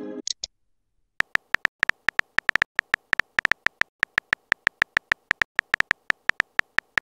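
Phone keyboard tap clicks from a chat app as a text message is typed out letter by letter, about five a second after a pause of a second. At the very start a short message tone fades out, followed by two short high blips.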